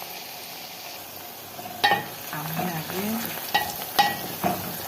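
Onions, green pepper and garlic sizzling as they fry in oil in a pot. From about two seconds in, a cooking utensil stirs them and strikes the pot several times with short ringing clanks.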